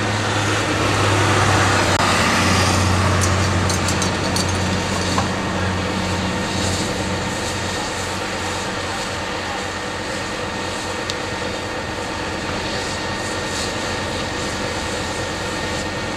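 A vehicle engine runs steadily with a low drone, under a rushing hiss that swells over the first few seconds and then settles. A few faint crackles come through a few seconds in.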